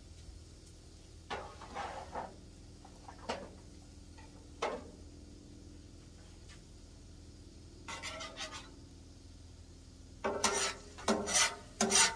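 Metal cooking utensils scraping and clacking on a flat-top griddle's steel surface as food is turned, in a quick run of strokes over the last two seconds. A few scattered knocks and clinks and one short scrape come before it.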